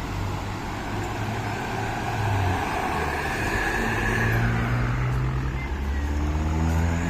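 Large bus's diesel engine running and pulling away, getting louder, with its pitch climbing near the end as it accelerates.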